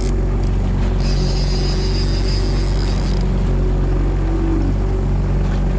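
Fishing boat's engine running steadily at trolling speed, a low even hum, with a high whir for about two seconds starting a second in.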